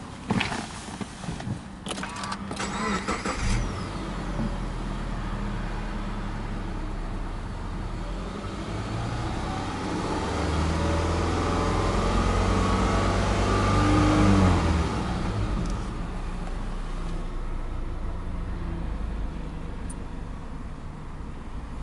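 Subaru EJ25 2.5-litre flat-four engine started: a few seconds of clicks and cranking, then it catches about three and a half seconds in and idles steadily. From about ten seconds in it is revved gently, near 2,000 rpm and rising, and drops back to idle after about fourteen and a half seconds.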